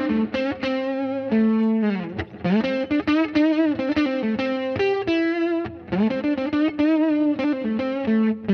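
Electric guitar playing a lead line through an overdrive, chorus, delay and spring reverb effects chain, with sustained distorted notes, string bends and vibrato.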